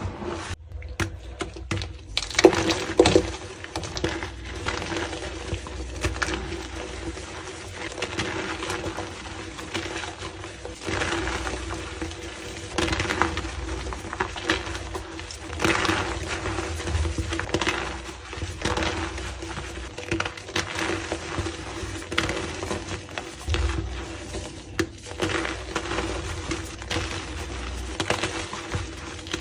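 Gym chalk being crushed and crumbled: a dense run of dry crunches and crackles, one after another.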